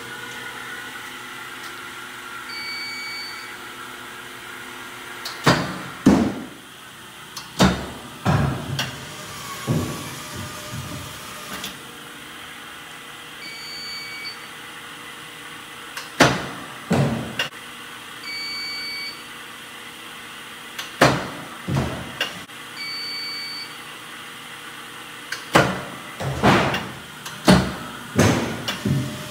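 Sports Tutor HomePlate Triple pitching machine running with a steady hum, throwing balls. Four times a short high electronic beep sounds, and a couple of seconds later come sharp cracks followed by a few more knocks as each pitch goes out and strikes the cage.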